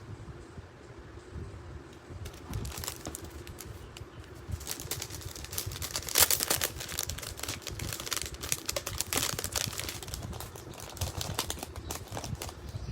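Plastic packaging crinkling and rustling as it is handled, in quick clusters of crackles that are sparse at first and busiest through the middle.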